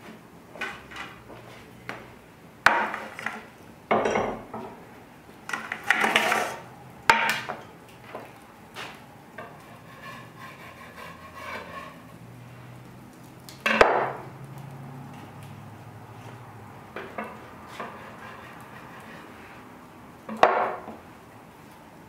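Tin pie pans and kitchen ware being handled and set down on a wooden work table: about half a dozen sharp knocks and clanks spread through, with quieter scraping and rustling between.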